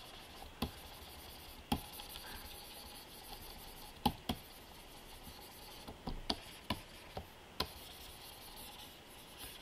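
Light, scattered taps and clicks of a pen stylus working on a pen-display tablet, about eight of them at irregular intervals, over faint room tone.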